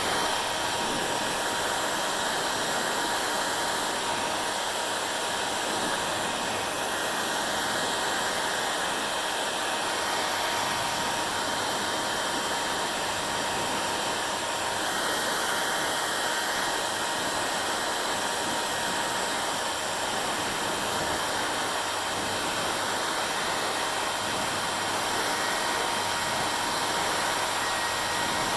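Handheld hair dryer running steadily: an even rush of blown air with a thin motor whine over it.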